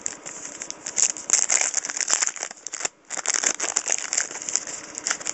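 Trading-card pack wrapper being torn open and crinkled as the cards are handled: a dense, irregular crackling that breaks off briefly about three seconds in.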